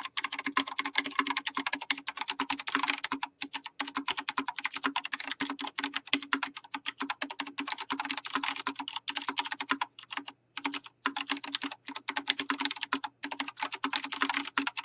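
Fast, continuous typing on a Vortex Race 3 mechanical keyboard with Cherry MX Brown switches, DSA profile keycaps and a steel plate: a rapid stream of key clacks, broken by a few brief pauses.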